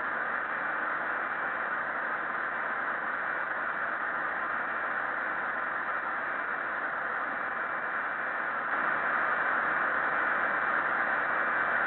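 Steady cockpit background noise of a Tupolev Tu-154M airliner, heard through its cockpit voice recorder: an even hiss of airflow and equipment with a few faint steady tones. It gets slightly louder about nine seconds in.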